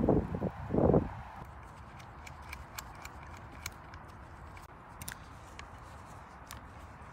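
Hand tools and fittings clicking and snipping as electrical cable and an earthing wire are worked, about a dozen small sharp irregular clicks. A loud rumble of rustling on the microphone fills the first second.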